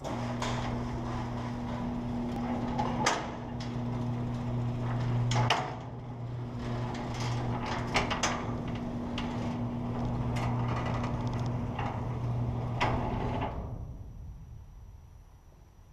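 Electric garage door opener running as a sectional garage door rolls up its tracks: a steady motor hum with rattling and several sharp clanks from the panels and rollers. It stops and fades away near the end.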